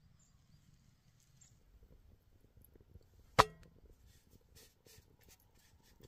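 A cast iron skillet clanks once, a sharp metallic hit with a short ring, about halfway through. Faint crackling from the campfire embers follows.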